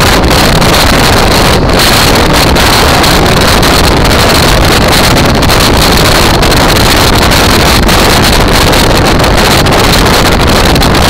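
Loud, steady wind noise on the microphone of a camera on a moving motorcycle, with the motorcycle's engine and road noise beneath it.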